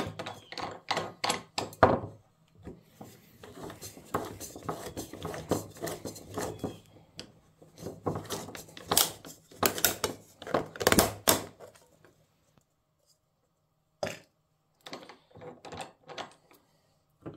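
Steel can of a Fram spin-on oil filter cut open in a hand-turned oil filter cutter: a run of irregular metallic clicks and scrapes as the can is twisted against the cutting wheel, stopping about 12 seconds in. After a pause there is one knock and a few light taps.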